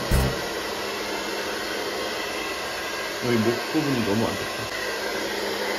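Hair dryer blowing steadily with a faint even hum, drying a wet kitten's fur.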